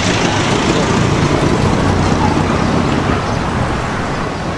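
Road traffic noise: the steady rumble and hiss of passing vehicles, with one going by close at the start and the noise easing slightly near the end.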